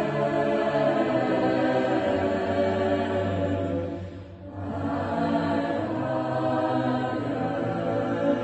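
A choir singing slow, sustained chords, with a short breath-like lull about halfway through before the voices come back in with low notes underneath.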